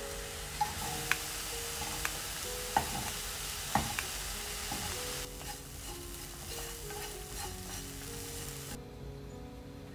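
Food sizzling in a coated frying pan as it is stirred, with a few sharp clicks of the tongs and chopsticks against the pan in the first four seconds. The sizzle weakens about five seconds in and drops away near the end, under soft background music with held notes.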